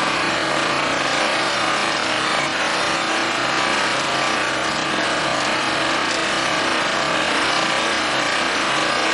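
Towable backhoe excavator's small engine running steadily, a harsh even noise with a faint hum underneath.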